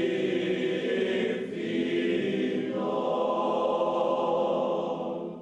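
A choir of several voices singing together in sustained lines, fading out at the very end.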